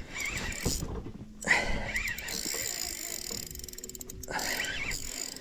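Spinning reel's drag buzzing as a big pike pulls line off against it, in two runs with a short break about a second and a half in.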